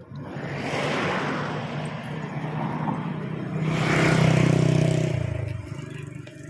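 A motor vehicle passing by. Its engine sound builds to a peak about four seconds in, then drops in pitch and fades away.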